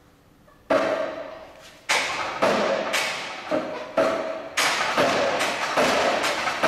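Steel pendulum-lever rig (a Milkovic two-stage oscillator replica) knocking as the 310 kg weight swings and rocks the lever beam: a string of sharp knocks about two a second, each ringing briefly, starting about a second in.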